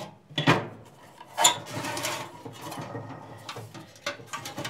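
Handling of the metal blower housing and motor assembly of a Suburban RV furnace: two sharp knocks, about half a second and a second and a half in, then a scraping rattle and scattered small clicks.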